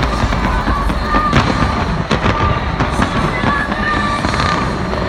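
Aerial fireworks going off in rapid succession, with many sharp bangs and crackles over a constant low rumble, and short high whistling tones in between.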